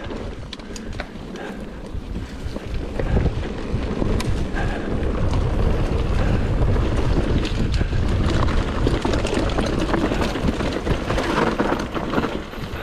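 Wind buffeting the onboard camera's microphone over the running noise of the moving vehicle, with scattered light knocks; it grows a little louder after about two seconds.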